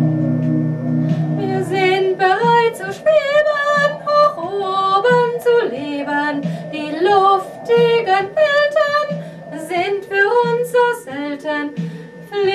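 A woman singing a slow song melody with vibrato over a soft accompaniment; a held low chord gives way as her voice comes in about a second and a half in.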